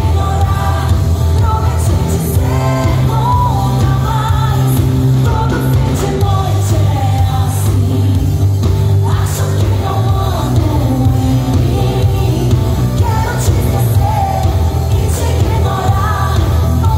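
Live pop band music: a woman singing into a microphone over drums, electric guitar and a strong, steady bass line.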